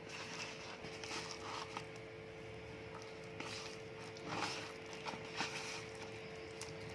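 Raw chicken pieces being mixed into a thick marinade of cornflour, gram flour, spice powder and lemon juice, giving soft, irregular squishing and scraping sounds. A steady faint hum runs underneath.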